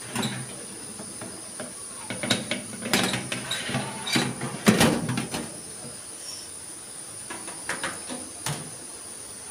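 Metal baking tray clattering and scraping as it is slid onto the rack of a countertop oven: a run of irregular knocks, the loudest about halfway through, then a few lighter knocks near the end.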